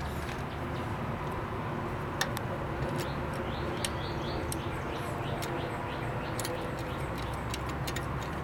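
Scattered light metallic clicks of small bolts and ignition parts being handled and started by hand on a Vespa 400 engine's points plate, over a steady low hum, with birds chirping briefly in the middle.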